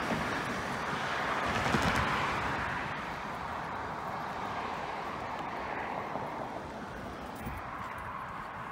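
A car passing on the road, with tyre noise swelling to a peak about two seconds in and then fading into steady background traffic noise.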